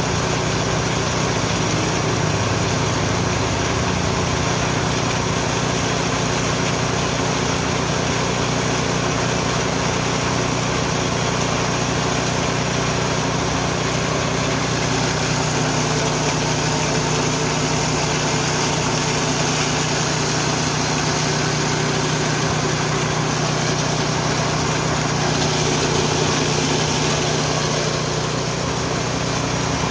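Engine-driven Richi KD 350 rice and corn milling machine running steadily, with a constant dense mechanical noise and a low engine hum.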